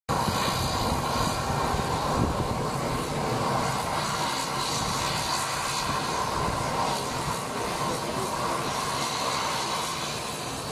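Twin turboprop engines of a CASA C-212 military transport running steadily on the ground, a continuous engine noise with a whine on top.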